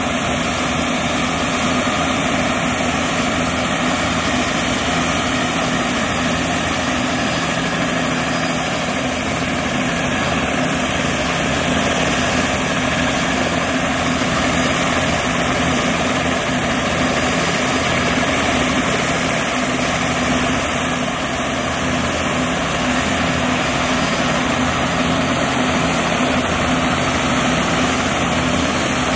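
Turbine helicopters, Bell 206B JetRangers and AS350 Ecureuils, running steadily on the ground: an even rotor and engine noise with a constant high turbine whine over it.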